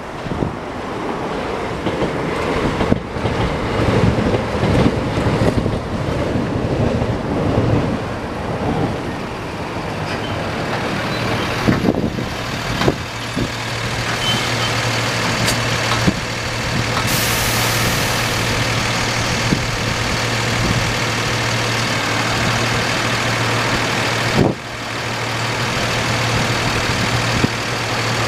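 Rumbling traffic at first. About halfway through, a heavy vehicle draws up close, and its engine idles with a steady low hum that runs on, with a brief dip near the end.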